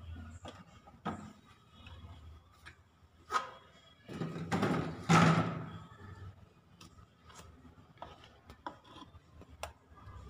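Handling noise from a plastic cup being held and moved against an aquarium's rim: scattered light taps and rubbing, with a louder rustling scrape between about four and six seconds in.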